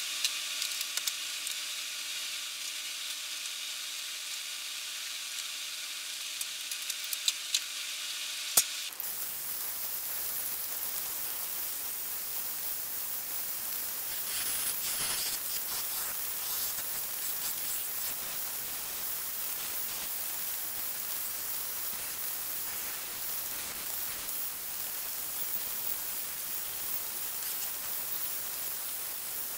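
A steady hiss with a faint hum and a few sharp clicks. About nine seconds in it gives way suddenly to a steady, even rushing noise: a bench belt sander running with a thin wooden strip held against the belt.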